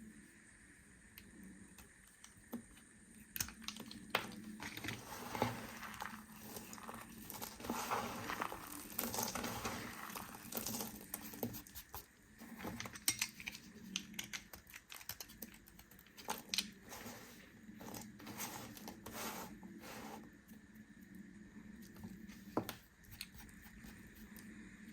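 Knife cutting through bar soap: crisp crunching and scraping strokes with sharp crackles, densest through the middle and sparse near the start and end.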